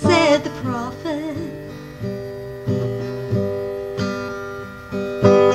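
A woman sings a short line to an acoustic guitar, then the guitar carries on alone with strummed chords ringing out, a fresh strum every half second to a second.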